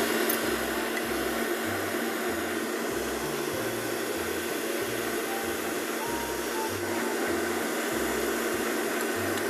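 Electric stand mixer running steadily, beating pancake batter of eggs, milk and flour.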